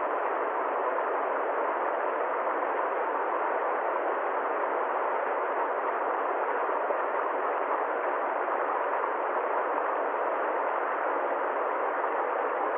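River water flowing steadily, an even unbroken hiss of running water.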